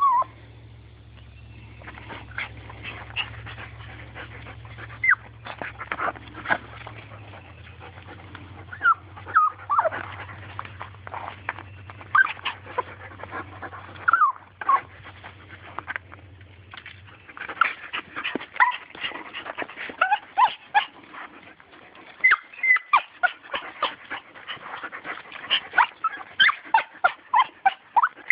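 Small dog whining and yipping in short, high-pitched, monkey-like cries, straining to get at a turtle. The cries come in quick runs and grow faster and more frequent toward the end.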